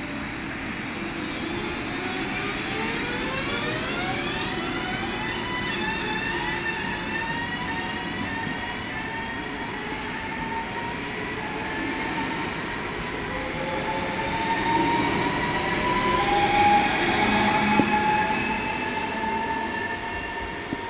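NSB BM72 electric multiple unit pulling out of the station: its traction motors give a whine of several tones that rise in pitch together in the first few seconds as it accelerates, then hold steady, over the rumble of wheels on rail. The sound grows louder past the middle as the train runs by.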